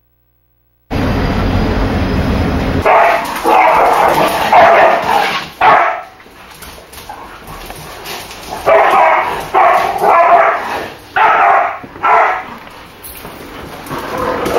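Two pet dogs in a spat, barking in loud bursts: a flurry about three seconds in, a short lull, then another run of barks, building again near the end. A low rumble comes before the barking.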